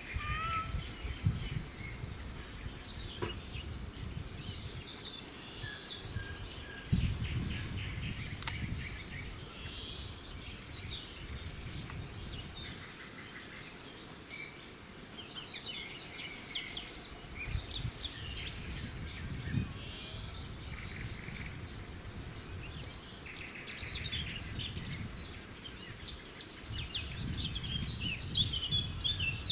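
Small birds chirping and calling in many short, scattered notes, over a background of intermittent low rumbling noise.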